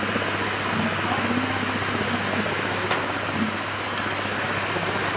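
Shallow river rushing over rocks: a steady wash of water noise.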